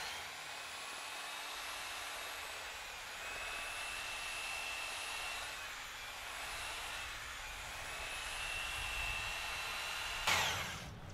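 Handheld electric paddle mixer whining steadily as it knocks up lime plaster (lime putty and sand) in a plastic bucket, its pitch wavering slightly as the paddle works the fairly dry mix. It winds down and stops about ten seconds in.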